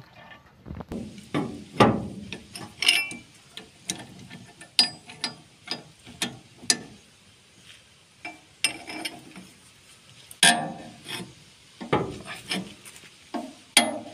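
Socket wrench being worked on a bolt in a steel steering linkage: irregular clicking and clinking of the tool against the metal, with a few short ringing metallic pings.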